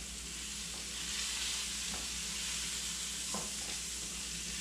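Sausages sizzling steadily in a frying pan, with a few faint clicks of a utensil against the pan.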